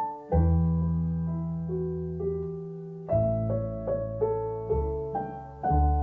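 Slow, gentle piano music: single melody notes over low bass notes that are struck afresh every one to three seconds and left to ring.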